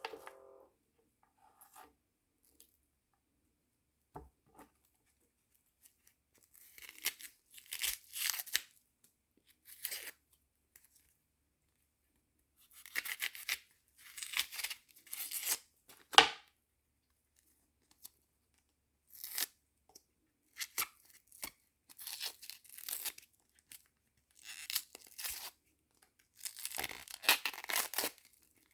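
Papery dry skin being torn and peeled off a red onion by hand, in repeated short scratchy bursts with quiet gaps between. There is one sharp knock about midway, the loudest sound.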